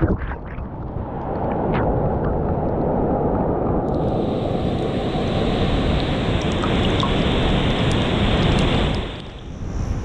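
Shallow ocean surf washing in over a microphone at the waterline: a steady rush of swirling water and foam, heavily muffled at first and brighter from about four seconds in.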